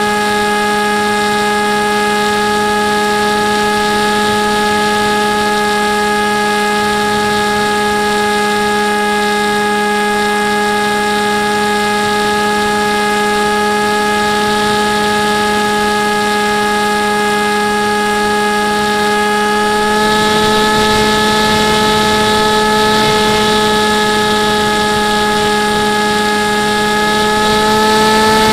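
Model aircraft's motor and propeller heard from the onboard camera: a steady whine of fixed tones over a low hum. From about two-thirds of the way in, a rush of air noise grows and the pitch lifts slightly, rising again near the end.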